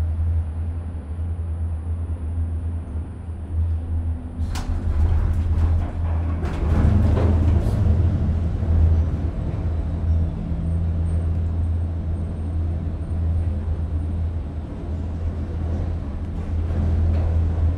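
Walt Disney World Skyliner gondola cabin riding along its cable, heard from inside: a steady low rumble, with a run of clicks and rattles about four to eight seconds in.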